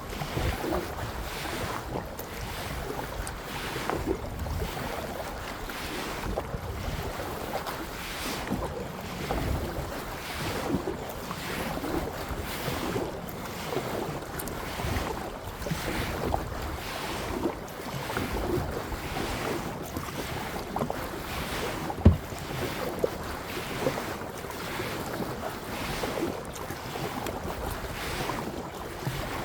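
Kayak paddling: water splashing with each paddle stroke, about one a second, with wind buffeting the microphone. A single sharp knock about two-thirds of the way through.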